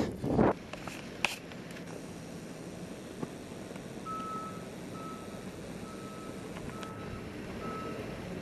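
A vehicle's reversing alarm beeping, a single repeated tone about once every three-quarters of a second, starting about four seconds in over a steady hiss of background noise. A few loud rustling bumps come in the first half second.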